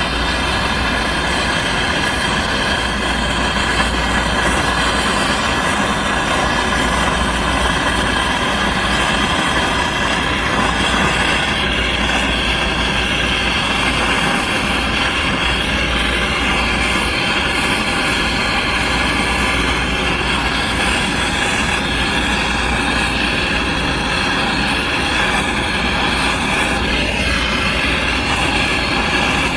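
LPG brazing torch flame burning steadily with a faint whistle, heating a copper joint on aluminium refrigerant piping to braze it.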